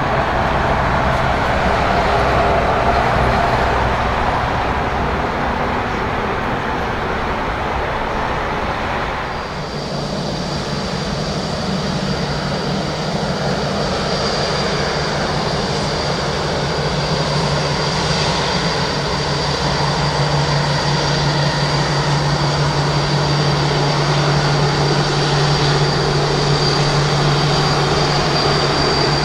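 Rolls-Royce Trent 1000 turbofans of a Boeing 787-8 running at low thrust as the airliner rolls and taxis after landing. A broad rumble gives way, about ten seconds in, to a steady high fan whine over a low hum.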